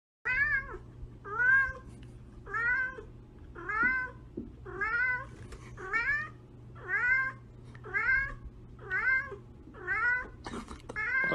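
A tabby cat meowing over and over: about ten short meows, each rising then falling in pitch, roughly one a second.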